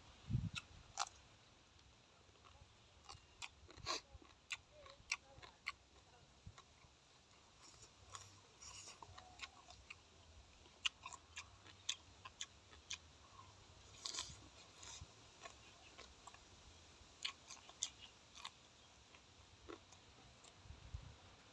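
Faint eating sounds: scattered sharp clicks and small crunches of chewing and handling raw vegetables and fried fermented pork, with low chewing sounds right at the start and again near the end.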